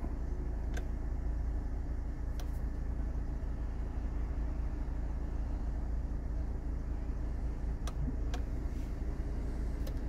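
Steady low rumble of a 2019 VW Crafter's 2.0 TDI diesel engine idling, heard inside the cab, with a few faint clicks from buttons on the dashboard refrigeration controller being pressed: two early and three close together near the end.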